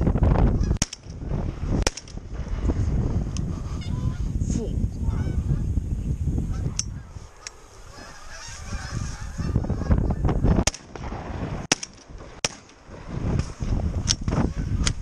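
A flock of geese honking as they fly over, over a heavy low rumble, with several sharp clicks.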